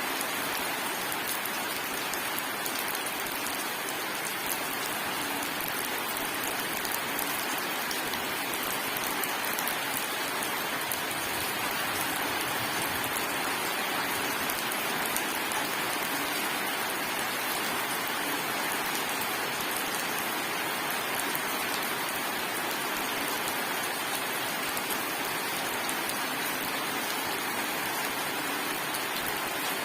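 Steady rain falling, a dense, even patter of raindrops hitting a surface with no thunder.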